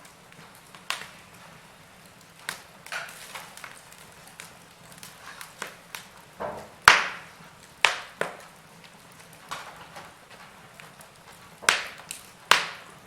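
Wood fire crackling: irregular sharp pops and snaps from burning logs over a quiet hiss, with a few louder pops about seven, eight, eleven and a half and twelve and a half seconds in.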